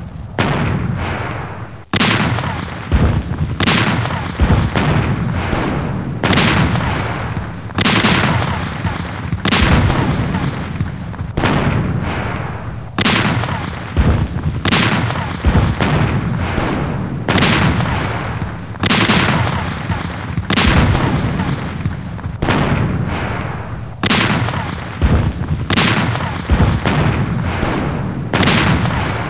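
Cannon fire sound effects: an artillery barrage of repeated booming shots, about one a second, each with a long fading tail, overlapping without a break.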